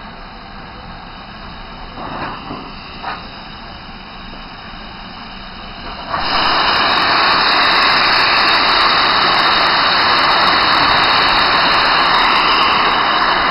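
LMS Black Five 4-6-0 steam locomotive 45379 standing, with a low steady hiss and a couple of brief louder puffs, then about six seconds in it suddenly starts blowing off steam in a loud, steady rushing hiss that does not let up.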